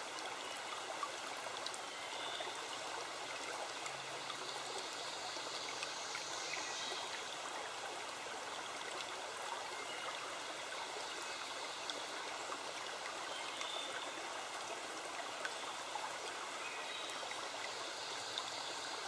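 A stream running steadily, with a few faint high chirps now and then.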